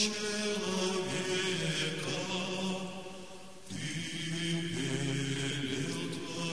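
Slow church chant in a low male register, long held notes stepping from pitch to pitch, with a brief break a little past halfway before the singing resumes.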